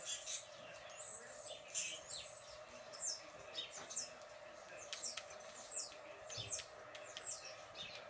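Songbird chirps playing from a bird video through a tablet's speaker: a string of short, high, falling chirps, a few each second, over a steady hum.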